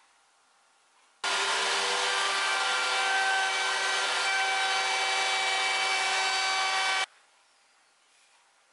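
Table-mounted router running and cutting a moulding profile along a wooden strip as it is fed past the bit: a steady machine whine over a hiss of cutting. It starts suddenly about a second in and stops suddenly shortly before the end.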